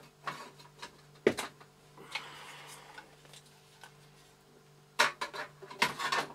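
Light hard clicks and knocks of computer parts being handled and set down on a workbench: one sharp knock about a second in and a cluster of knocks near the end, over a faint steady hum.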